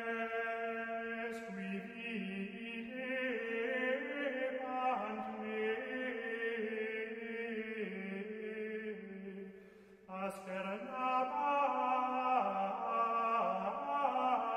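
Sung chant, with voices holding long notes in a slow, plain melody. It breaks off about ten seconds in and starts again a moment later.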